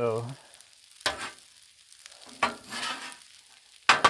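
Metal spatulas scraping and turning rice and red beans across a Blackstone steel griddle top, in three separate strokes, the last a sharp scrape near the end.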